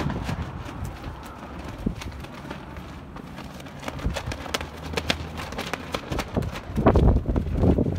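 Footsteps crunching on gravel at a walking pace, over a low steady rumble. Louder buffeting of wind on the microphone comes in near the end.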